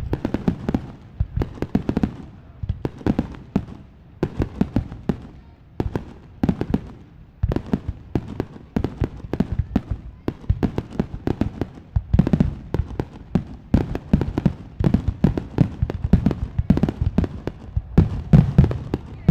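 Aerial fireworks bursting in a rapid, irregular volley, several bangs a second, growing louder near the end.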